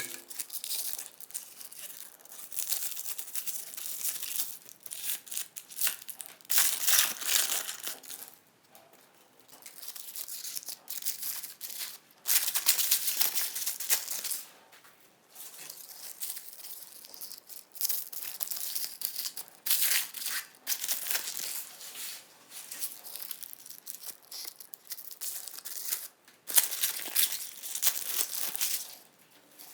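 Foil wrappers of umbrella chocolates crinkling and tearing in irregular bursts of a second or more, with short pauses between.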